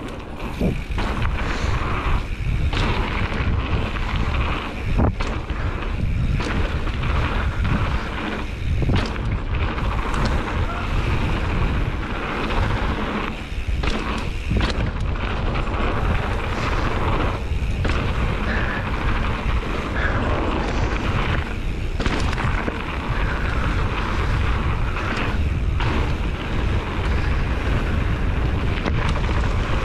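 Mountain bike riding fast down a dirt trail: a steady low rumble of wind buffeting the camera microphone, with tyres rolling on dirt and frequent sharp knocks and rattles as the bike hits bumps.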